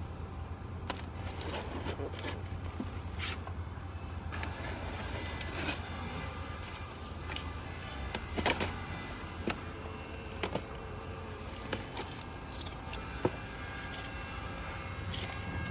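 Hive tool cutting packing tape and prying open a cardboard shipping box, folding back its flap: scattered scrapes, tearing and sharp clicks of cardboard over a steady low hum.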